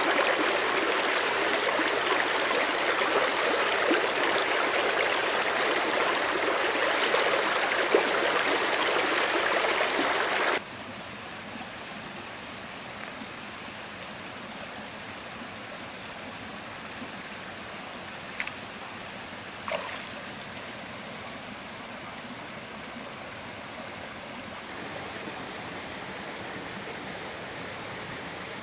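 Stream water rushing steadily. About ten seconds in it cuts abruptly to a much quieter flow, with a couple of faint knocks.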